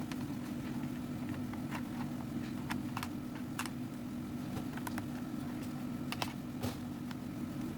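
Scattered sharp little clicks and taps, like small plastic parts and tools being handled, over a steady low hum.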